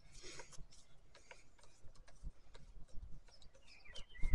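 Faint, irregular small clicks and ticks of a screwdriver turning a screw into the plastic housing of a Stihl MSA 120 C battery chainsaw, with a louder handling knock right at the end.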